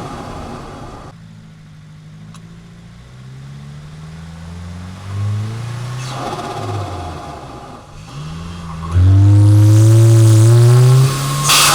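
Turbocharged flat-four of a tuned 2022 Subaru WRX heard at its BMS intake, accelerating through several gears with its pitch climbing in steps, then pulling loudly under boost for about two seconds. Near the end the throttle closes and the stock bypass valve vents with a short sharp hiss.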